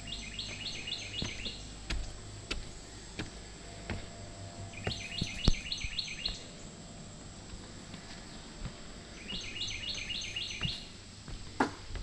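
A songbird sings three times, about four seconds apart, each song a quick run of about six repeated notes. Between and under the songs, footsteps knock on wooden boardwalk planks, with one sharper knock about halfway through.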